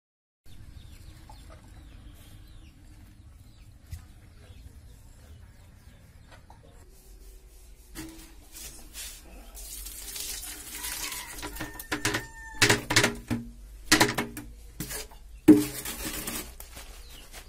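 Water splashing and running as small fish are tipped into a plastic mesh basket. This is followed by several loud, short clucks from chickens close by.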